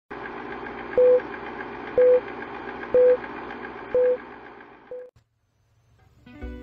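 Film-leader countdown sound effect: the steady fast clatter of an old film projector with a short beep once a second, five beeps in all, cutting off about five seconds in. Music starts up near the end.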